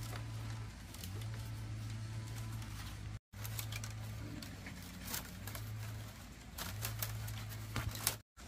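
Thin bamboo strips rustling, scraping and clicking against one another as they are threaded by hand through a bamboo basket being woven, with a low hum coming and going underneath. The sound breaks off briefly about three seconds in.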